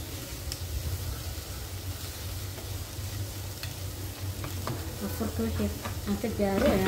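Meat pieces cooking in a little water in a pot on a gas hob: a steady low rumble with a faint sizzle. A few light taps come from hands working sambusa dough on a wooden board.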